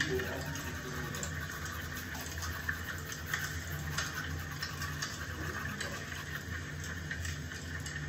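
Teeth being brushed with a manual toothbrush, with scrubbing strokes over a steady hiss and low hum.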